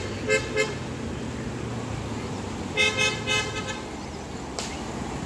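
A vehicle horn beeping in short toots: three quick beeps at the start and a faster run of about five beeps about three seconds in. They sound over a steady low hum and noise, with a single sharp knock near the end.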